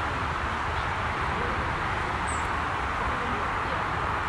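Steady outdoor background hiss over a low rumble, with one short, high bird chirp about two seconds in.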